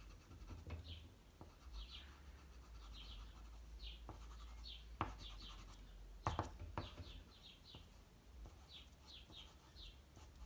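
Soft pastel stick rubbed across pastel paper in short strokes, a faint scratchy rubbing, with a couple of light knocks around the middle. Faint high chirps repeat throughout, about once or twice a second.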